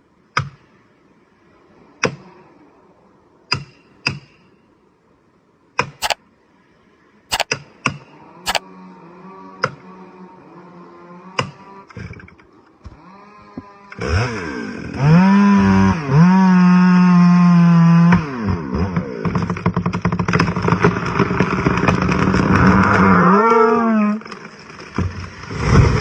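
A run of sharp, single knocks every second or two. Then a chainsaw engine running faintly, which about fourteen seconds in revs up and runs at full throttle for about ten seconds, with brief dips in pitch as it works through the wood.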